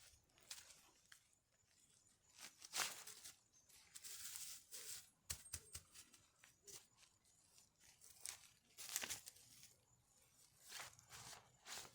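Faint, scattered rustling and crinkling with small clicks and taps, like things being handled at close range, with a louder crackle about three seconds in and another about nine seconds in.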